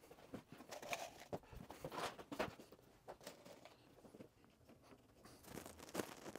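Faint, scattered clicks and rustles of wire stitches being twisted by hand through the stitch holes of thin plywood kayak panels. The sounds come a little closer together and louder near the end.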